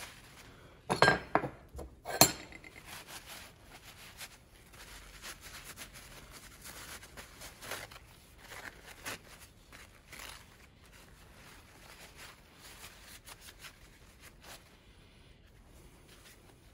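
Two sharp metallic clinks, about a second and two seconds in, as metal PCV valve parts are set down on a wooden workbench, followed by soft, repeated rustling and rubbing of a paper shop towel wiping a small valve spring clean.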